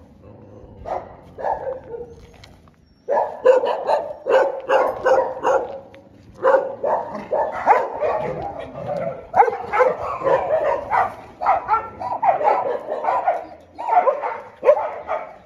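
Many dogs barking: a few scattered barks at first, then from about three seconds in a near-constant chorus of barks overlapping one another.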